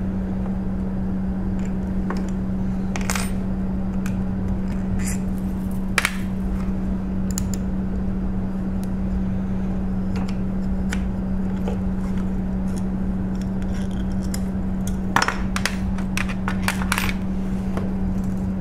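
Small metal clicks, taps and scrapes of tools and hardware being handled on a Creality CR-10 V2/V3 3D printer's X-axis stepper motor and gantry, over a steady low hum. The loudest click comes about six seconds in, and a quick run of clicks follows near the end.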